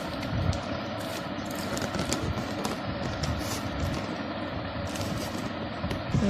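A parcel being opened by hand: faint scraping and rustling of the packaging, over a steady background rumble.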